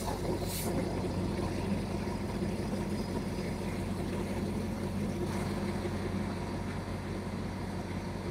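Stationary diesel passenger train idling, a steady low engine hum.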